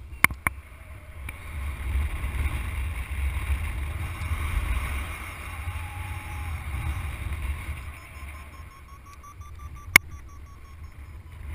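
Wind rushing and buffeting over the microphone of a camera carried on a paraglider in flight: a low rumble that swells about two seconds in and eases after eight seconds. A few sharp clicks come near the start and once about ten seconds in.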